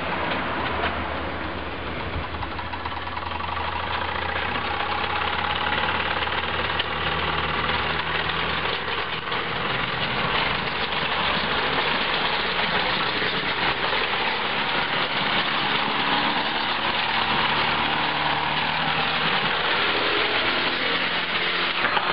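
Wilesco D14 toy steam engine, rebuilt as a garden-gauge locomotive, running along the track: a steady, fast hiss and clatter of steam exhaust and drive, a little louder after the first few seconds.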